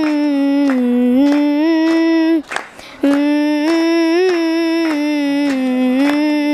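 Music: a single held, gently gliding melody line between sung verses, breaking off briefly about two and a half seconds in.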